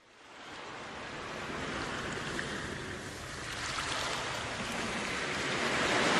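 Sea waves washing in on a shore, fading up from silence and swelling in slow surges.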